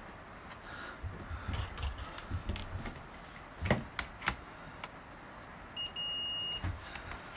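Multimeter continuity beep: one steady high tone lasting under a second near the end, as the probes bridge the newly soldered replacement fuse, a sign that the fuse now conducts. Before it come light clicks and taps of tools on the circuit board.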